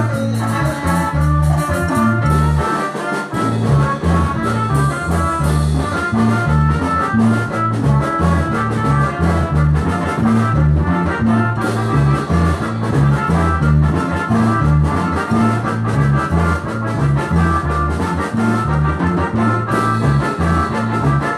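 Upbeat dance music with brass instruments playing the melody over a steady, repeating bass line.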